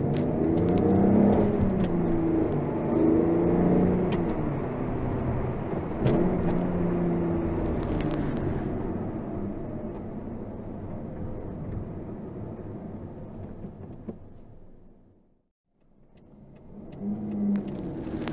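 Alfa Romeo 156's 2.5-litre Busso 60-degree V6 revving up and down several times, in a recording with the band around 250 Hz cut down by equalization. It eases off and fades to silence about fifteen seconds in, then starts revving again a second or so later.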